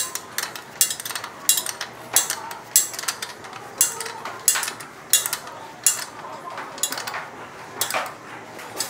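A wrench tightening a motorcycle's rear axle nut: a steady run of sharp metallic clicks, about two a second.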